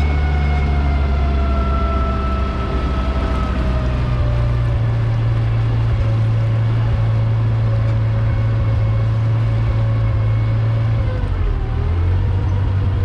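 Vintage Amphicar amphibious car's engine running while it cruises on the water: a steady low drone with a higher tone above it that slides down over the first few seconds, then holds, dipping briefly near the end.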